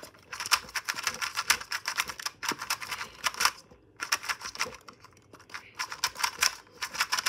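GAN 2x2 speed cube being turned by hand: its plastic layers clicking in a rapid run, with two short pauses near the middle.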